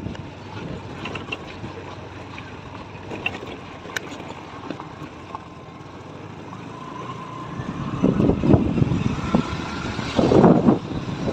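Hero Duet scooter riding over a rough gravel road: its small single-cylinder engine runs under a steady rumble of tyre and road noise. From about eight seconds in, wind gusts buffet the microphone and become the loudest sound as the scooter picks up speed.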